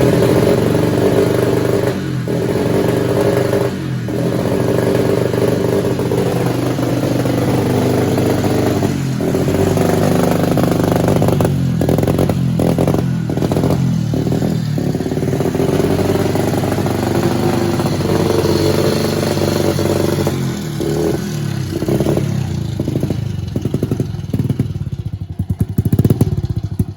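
Honda pit bike's small single-cylinder engine running, its pitch rising and falling as it is revved, with several brief drops in the middle and choppier running near the end.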